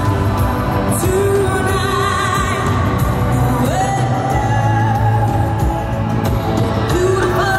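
A woman singing a pop song live with a band, holding long notes with vibrato over a steady low bass.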